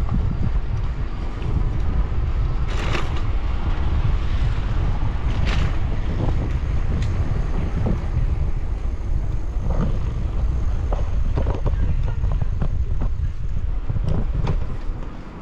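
Wind buffeting the microphone of a camera on a moving bicycle, with the rumble of tyres on cobblestones: a steady low rumble broken by a few sharp clicks and rattles. It eases near the end as the paving turns smooth.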